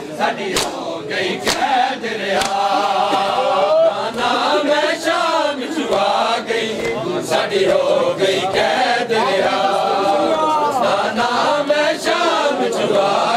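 Male mourners chanting a noha together, over sharp slaps of hands striking bare chests in matam, about one slap a second.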